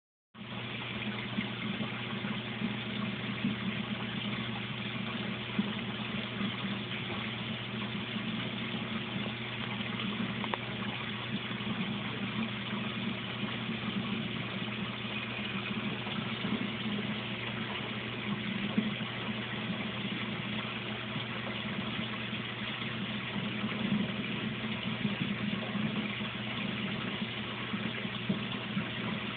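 Aquarium filter pump running steadily: a constant low hum with an even hiss of moving water, and a few faint clicks.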